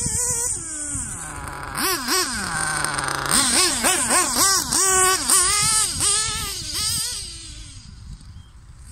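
Hobao Hyper 7 TQ2 1/8-scale nitro buggy's small glow engine revving: a long fall in pitch, then a quick run of revs up and down as it passes close, fading as it drives away near the end.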